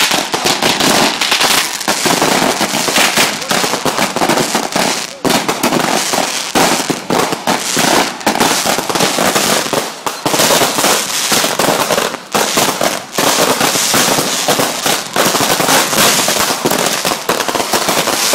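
Fireworks going off in a rapid, unbroken barrage of sharp bangs and crackles.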